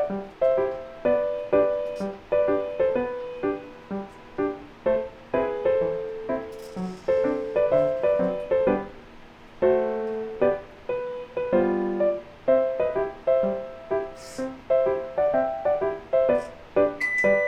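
Background piano music: a melody of single notes at an even pace, each note dying away, with a few faint short hisses behind it.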